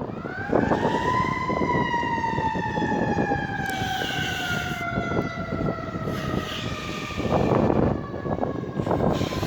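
Fire engine siren winding up within the first second to a single high wail, then slowly winding down in pitch over the next several seconds, over steady engine and outdoor background noise.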